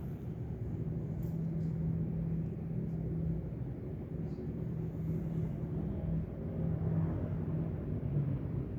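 Uchida CF-251 industrial ceiling fan running, a steady low motor hum over an airy rumble, with a few faint ticks. Its motor capacitor is one the owner takes for weak, leaving the top speed as slow as the lowest.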